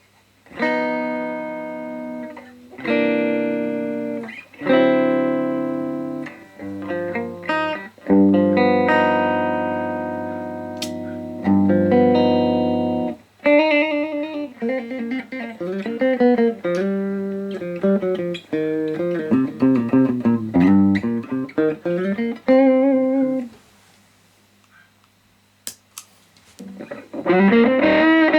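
Les Paul electric guitar played through an amp and the CE Pedals FET Dream pedal. First it plays a series of strummed chords, each left to ring out; then it plays single-note lines with bends and vibrato. After a short pause with a steady low amp hum, a louder, thicker chord comes in near the end.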